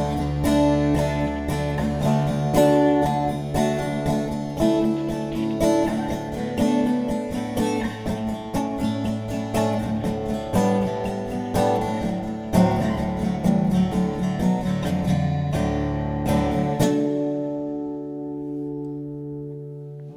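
Acoustic guitar music, a run of plucked notes; about 17 seconds in the playing stops on a final chord that rings on and fades away.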